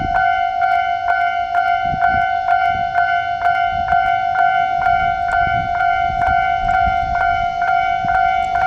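Railway level-crossing alarm ringing: a steady electronic ding, struck a little over twice a second, over the low rumble of an electric train pulling slowly away from the platform.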